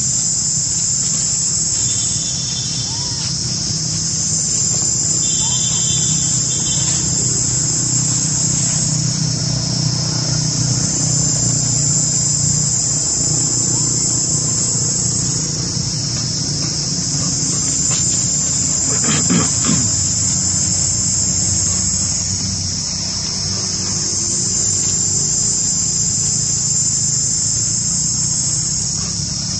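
Loud, high-pitched drone of insects in the trees, swelling and fading in slow waves, over a low hum.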